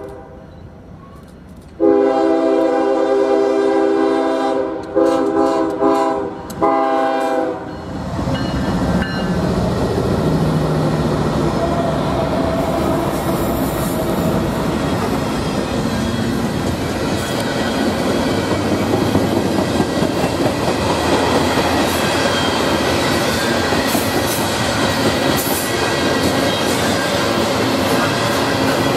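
Norfolk Southern diesel freight locomotive sounding its multi-note air horn for a grade crossing: a long blast, then two shorter ones, ending about seven and a half seconds in. The engine then passes close, followed by the steady rumble and clickety-clack of open hopper cars rolling by.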